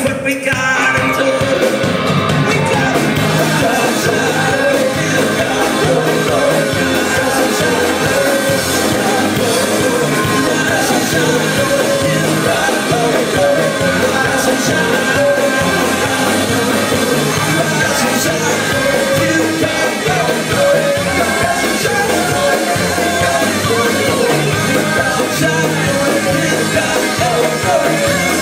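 Live band music: singing over upright bass, guitar and drums with a steady beat, loud throughout.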